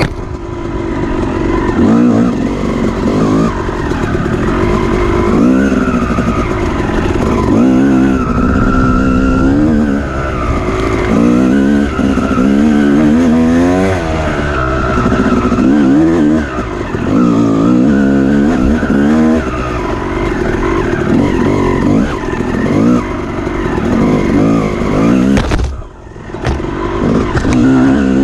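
Off-road dirt bike engine racing, its pitch climbing and falling again and again as the throttle is worked, with a brief drop about 26 seconds in when the throttle is chopped.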